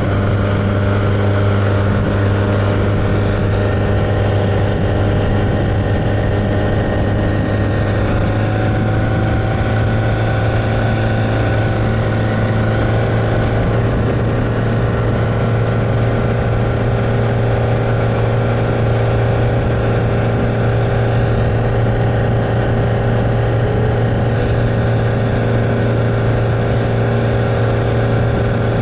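Boat motor running steadily under way, with a constant low hum. Its pitch lifts slightly about eight seconds in.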